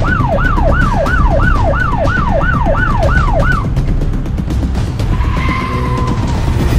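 A siren with a fast wail: each cycle jumps up and slides down in pitch, about three times a second, for roughly three and a half seconds over background music with heavy bass. About five seconds in, a steady held tone sounds for about a second.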